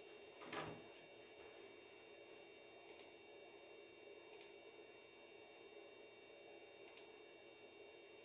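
Near silence: faint room tone with a steady hum, broken by a few faint, sharp clicks, the strongest about half a second in and weaker ones around three, four and seven seconds in.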